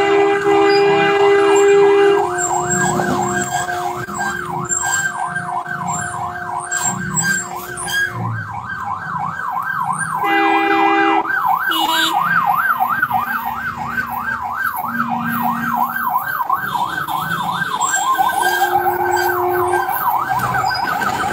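Electronic siren warbling rapidly up and down, with a two-tone vehicle horn held for several seconds at the start, then sounded in short honks and once more near the end.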